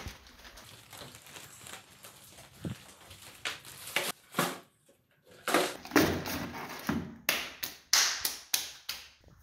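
Plastic sack crinkling and rustling as household items are stuffed into it, with knocks and taps from the things being handled. It comes as an irregular run of short crackly bursts, louder and denser after a brief gap about halfway through.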